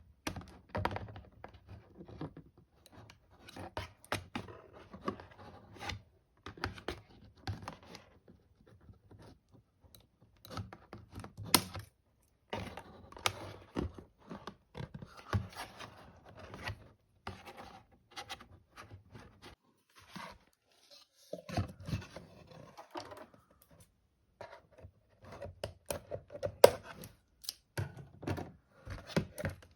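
Doll packaging being opened by hand: irregular rustling and scraping with many sharp clicks and snaps, pausing briefly about two-thirds of the way through.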